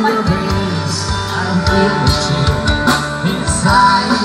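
Live rock band playing through a PA: electric guitar and drum kit over a steady bass line.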